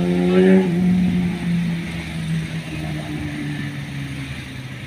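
An engine running with a steady low hum that slowly fades and sags a little in pitch.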